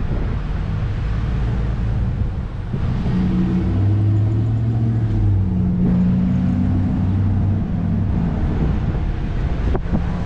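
Car driving on a city street: engine hum and road noise, with a steady engine note from about three seconds in as it pulls across an intersection. A couple of sharp knocks near the end.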